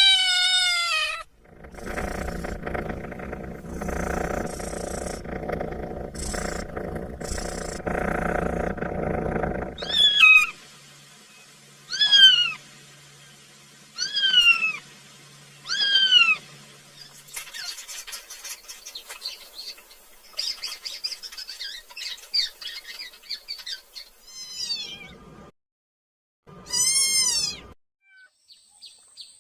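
Kitten meowing repeatedly in short, falling cries: a run of four evenly spaced meows in the middle, and more near the end. A stretch of dense, unclear noise fills the first third.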